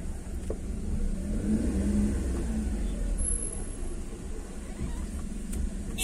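Car engine and low road rumble heard from inside the cabin as the car moves slowly, the engine note swelling briefly about two seconds in.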